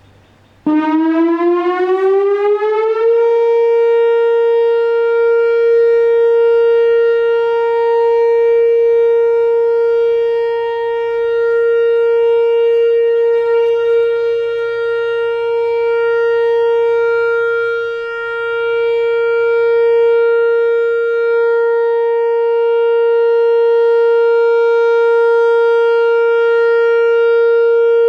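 Whelen Vortex R4 rotating electronic outdoor warning siren sounding its steady 30-second alert during a routine weekly test. It comes on just under a second in, climbs in pitch for about two seconds, then holds one steady tone, its loudness swelling and dipping slightly as the horn rotates.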